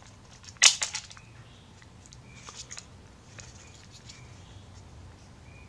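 A sharp plastic click about two-thirds of a second in, then a few faint clicks and taps as small plastic parts of a camcorder are handled during disassembly.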